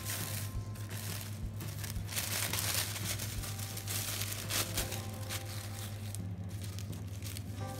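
Thin plastic shopping bag crinkling and rustling as it is handled, opened out and smoothed flat on a table, loudest about two to three and a half seconds in. A steady low hum runs underneath.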